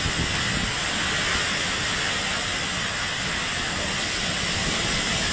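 Typhoon wind and driving rain, a steady, dense hiss with gusts rumbling on the microphone.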